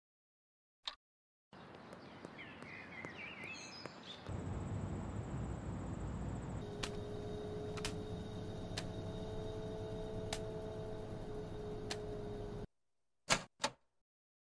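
A string of cartoon ambience and sound effects: two brief clicks, then a faint outdoor background with a few bird-like chirps. From about four seconds in, a steady low rumble with a held hum and occasional sharp ticks, which cuts off suddenly, followed by two quick sharp clunks near the end.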